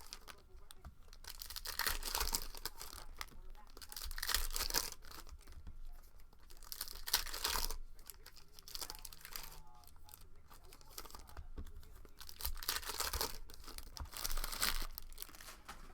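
Plastic wrapping on trading card packs being torn open and crinkled, in several bursts of a second or so with quieter rustling between.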